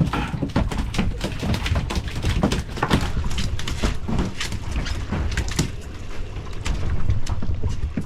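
Irregular knocks and slaps over a steady low rumble of wind on the microphone.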